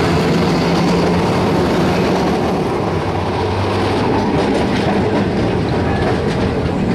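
Vintage Milan-built Peter Witt streetcar running on its rails: a steady rumble and clatter of steel wheels on track, with a low motor hum that fades after a couple of seconds.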